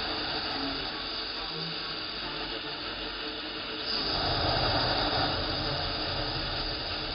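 Nitrous oxide hissing steadily out of the open nozzles of a dry direct-port nitrous setup during a spray test. The hiss swells about four seconds in.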